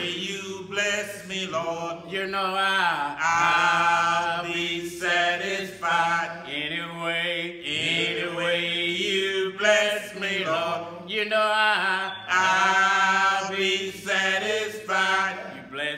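Two men singing a slow gospel hymn, each word stretched over long held and bending notes.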